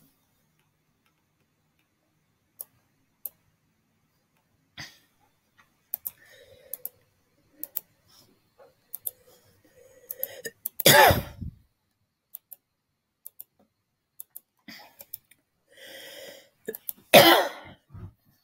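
A computer mouse clicking now and then, with a person coughing twice: once about eleven seconds in and again near the end.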